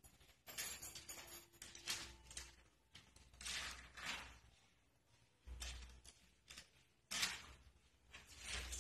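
Faint, irregular scrabbling and scratching of a cat's claws on a door as the cat climbs it, with a few dull knocks against the door.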